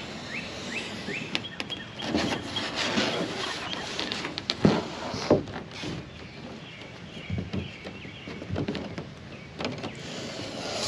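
A metal straight edge being slid, pressed and tapped on a sheet of pink foam insulation board while a pencil line is marked along it: irregular scraping and rubbing with a few sharp knocks, the loudest knocks about halfway through.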